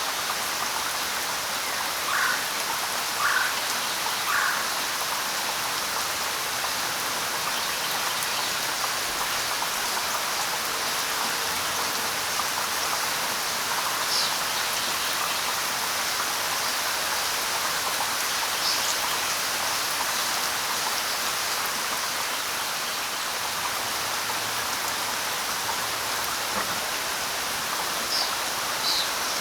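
Steady light rain falling, an even hiss, with occasional short bird calls over it: three lower chirps a couple of seconds in, then a few higher, thinner chirps later on.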